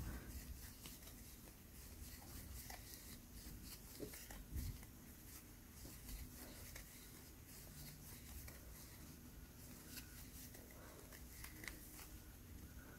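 Near silence with faint rustling and small ticks of a crochet hook pulling yarn through single crochet stitches.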